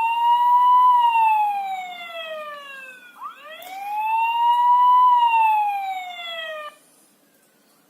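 Home alarm system's electronic siren, set off by the motion sensor detecting a person, wailing in two slow cycles that each rise for about a second then fall away over two more, and cutting off suddenly near the end.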